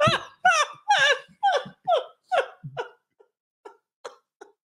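A person laughing in a run of short high-pitched ha-ha pulses, about two a second, that grow fainter and trail off near the end.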